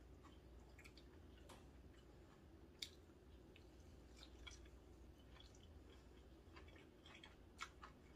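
Faint close-up chewing and mouth sounds of someone eating a bite of seafood green-onion pancake, with light scattered clicks, and one sharper click a little under three seconds in.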